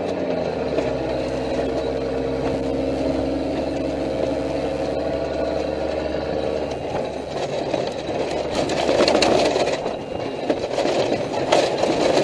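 Armored patrol vehicle's engine running steadily as it drives, heard from the gun turret. From about seven seconds in, the steady engine tone gives way to a rougher, louder noise with a few sharp knocks.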